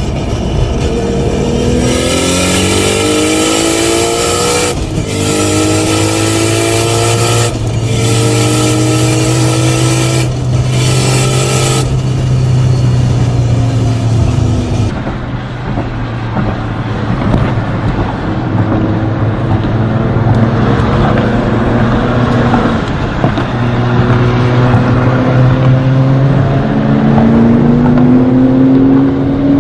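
Nissan R34 GT-R's RB26 straight-six, stroked to 2.8 litres, accelerating hard: the engine note climbs in pitch, drops briefly at each quick gearshift of its sequential gearbox, then climbs again, through several gears in a row. A second pull, with rising revs, comes in the second half.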